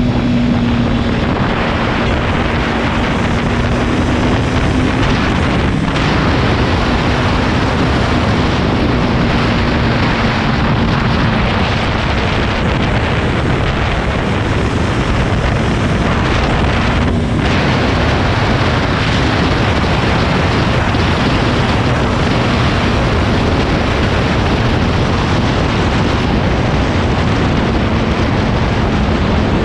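Loud, steady wind noise rushing over the microphone of a motorcycle at road speed, with the engine's steady note underneath.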